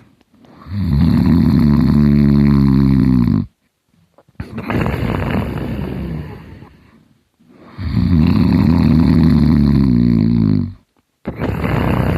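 Heavy snoring by a person asleep: two long, loud snores about seven seconds apart, each lasting about three seconds, with a softer breathy breath between them and another beginning near the end.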